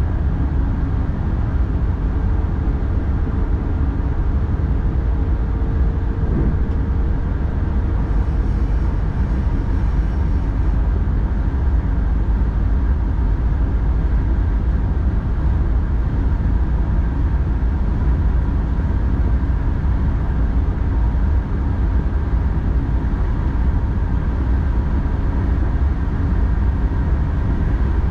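X40 double-deck electric multiple unit running at line speed, heard from its driver's cab: a steady low rumble of the running gear with a faint steady hum.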